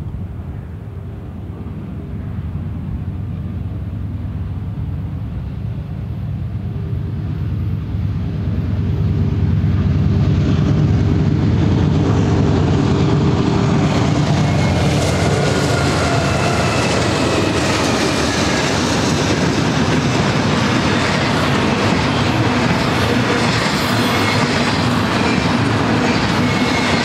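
Freight train passing at trackside: three GE diesel locomotives, led by a C44-9W, approach with a low engine rumble that grows louder over about ten seconds, then go by. Double-stack container cars follow, rolling past with steady wheel clatter and thin high wheel squeals.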